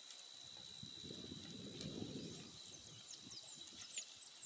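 Faint pasture sound of sheep grazing, with scattered small clicks and tearing noises as they crop grass. A low muffled swell rises and fades about a second in, lasting about a second and a half. Small birds chirp high up in the second half, over a steady faint high tone.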